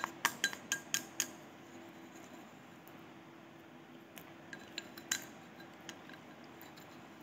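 Wooden chopsticks clicking and scraping against a ceramic rice bowl: a quick run of clicks, about four a second, through the first second, then a few scattered clicks a little past halfway.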